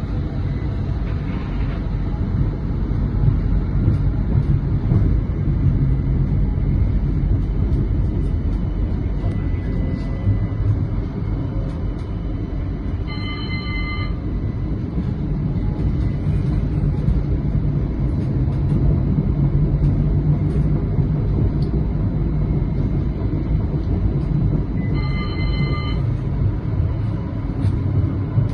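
CAF Urbos 100 tram running along street track, a steady rumble heard from on board. Two short ringing signal tones sound about twelve seconds apart, near the middle and near the end.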